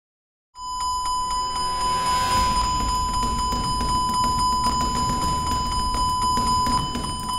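Airbus A380 simulator cockpit fire warning sounding a steady high alarm tone over a low rumble, starting about half a second in: the alert for an engine 2 fire.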